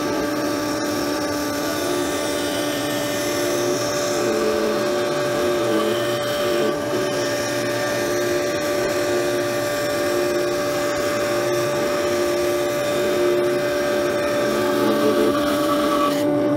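Atika BS 205-2 bench band saw (250 W) running and cutting a 25 mm walnut strip, played back at four times speed: a steady high motor whine with a lower tone that comes and goes in an even beat, over the hiss of the blade cutting. The blade goes through the walnut easily.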